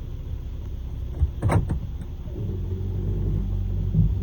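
Lexus RX330's V6 engine idling in park, a steady low rumble without the noise it makes in drive. About a second and a half in there is a sharp knock, and a steady low hum comes in about halfway through.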